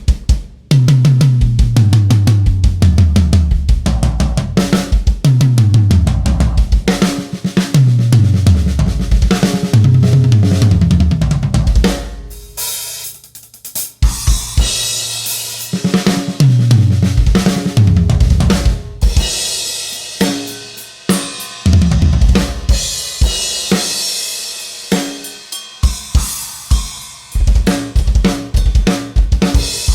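DW Collector's Series almond/maple drum kit being played: several fills run down the toms, each stepping lower in pitch from the high tom to the floor tom, with kick and snare hits. From about twenty seconds in, cymbals and hi-hat ring over the drums.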